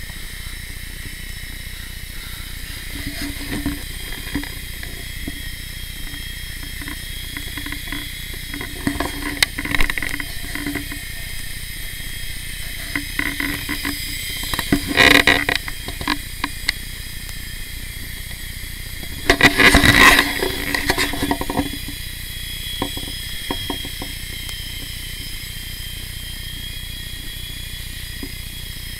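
Blade mCX Tandem Rescue micro RC helicopter flying: its small electric motors and two rotors give a steady high-pitched whine. Twice, about fifteen and twenty seconds in, a louder, noisier burst rises over the whine for a second or two.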